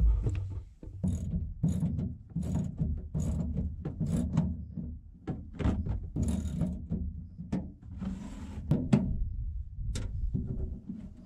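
Ratchet wrench clicking as it undoes the bolts of the engine access panel in a truck's steel bed floor, mixed with irregular metallic clanks and a stretch of scraping.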